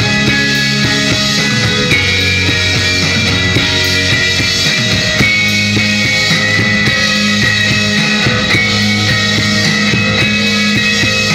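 Instrumental post-rock band playing live: layered electric guitars over sustained bass notes and steady drumming. The low notes shift every few seconds.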